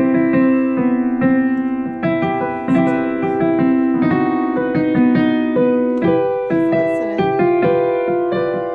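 Piano playing a continuous run of notes over held lower notes, each note struck and then fading.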